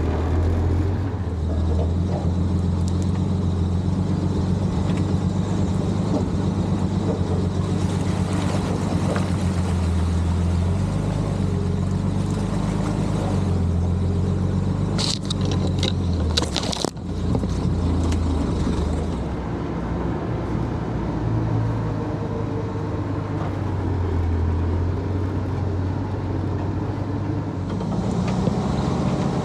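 Dodge M37's flathead straight-six engine running at low, steady revs as the truck crawls along a dirt trail. A few sharp knocks come about halfway through.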